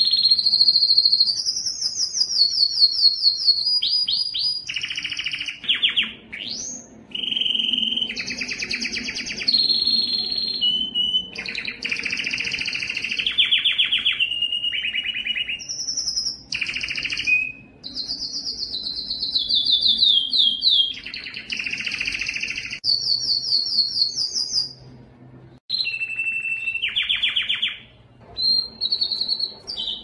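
Domestic canary singing a long, varied song: phrase after phrase of rapid trills, some holding one pitch and some sliding up or down, with a short pause near the end.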